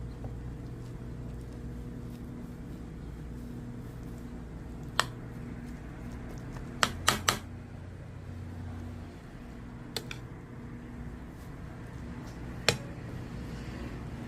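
Steady low hum of a kitchen fan, with six sharp knocks: one about five seconds in, three in quick succession a couple of seconds later, and two more spaced out toward the end.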